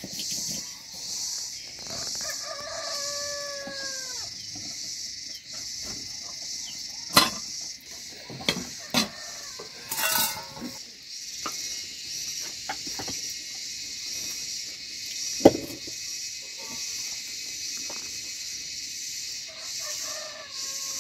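A rooster crows a couple of seconds in and again near the end, over a steady high-pitched drone. Sharp knocks and clatters of metal cookware and a spoon come now and then; two of them, a third and three-quarters of the way through, are the loudest sounds.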